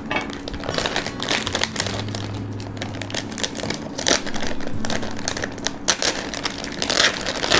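A food packet crinkling and rustling as it is handled and opened by hand, in irregular crackles.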